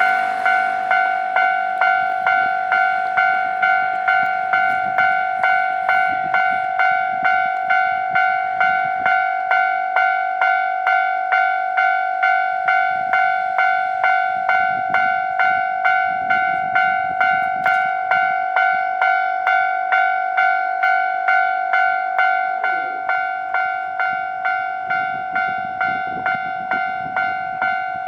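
Japanese railway level crossing alarm ringing, a steady, rapid, evenly repeating ding-ding at about two strokes a second, which warns that a train is approaching. It gets a little fainter near the end.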